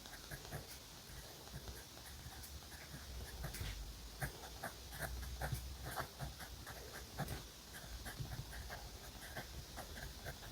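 Pen writing on notebook paper: quick, irregular scratchy strokes of the nib across the page, with an occasional louder tick.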